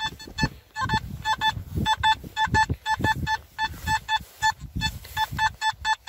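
Nokta Makro Simplex metal detector beeping over a buried target: short high beeps in quick pairs and triplets, again and again as the coil is swept back and forth. The high tone goes with a target reading 69–70, which the detectorist takes for a can.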